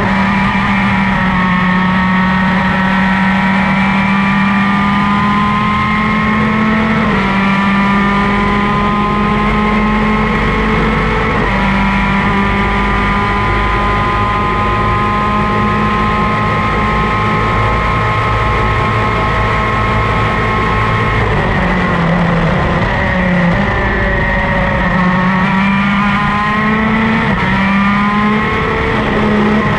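Superkart's two-stroke racing engine heard onboard at full throttle, its note climbing and stepping down at each upshift, about 7 and 11 seconds in. After a long flat-out run it falls and wavers for a few seconds through braking and downshifts about 21 seconds in, then climbs again near the end as the kart accelerates out.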